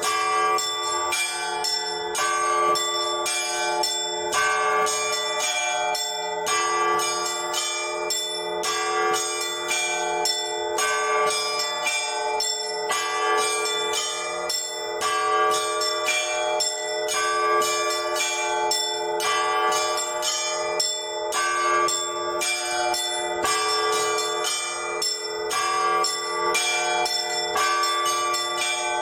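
Orthodox church bells hand-rung by a single bell ringer in a continuous zvon: quick, steady strokes on the smaller bells ring over one another without a pause, with a faint low bell tone held underneath.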